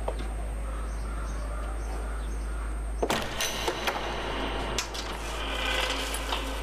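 A door being opened: a sharp click about three seconds in, then several lighter clicks and knocks of the latch and handle.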